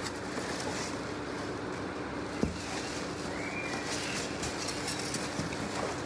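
Clear plastic wrapping rustling and crinkling as hands pull it off a grill's black metal bowl, with one sharp knock about two and a half seconds in. Under it runs a steady hiss with a low hum.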